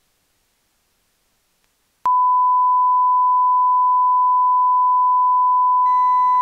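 Dead silence, then about two seconds in a steady single-pitch test tone near 1 kHz, the beep laid under a colour-bars 'technical difficulties' card, starts and holds. It stands in for audio that was lost when a shorted extension cord cut the recording.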